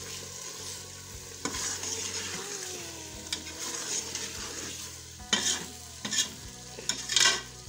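A metal spoon stirs and scrapes a thick potato and capsicum masala in a pressure cooker pot while the mixture sizzles as it fries down. The scrapes get louder and come closer together near the end.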